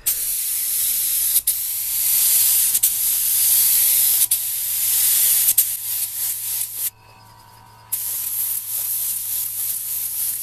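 Compressed-air gravity-feed spray gun spraying clear varnish: a loud, steady hiss with a few very brief breaks. It stops for about a second around seven seconds in, then starts again.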